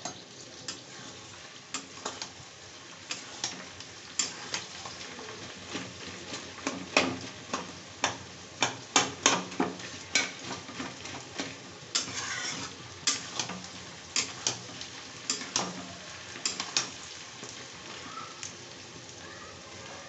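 Sliced onions sizzling in hot oil in a steel kadhai, with a spatula scraping and knocking against the pan in irregular strokes as they are stirred. The stirring thins out near the end, leaving the steady sizzle.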